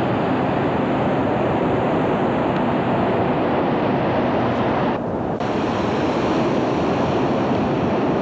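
Steady rush of ocean surf mixed with wind buffeting the microphone, briefly thinning about five seconds in.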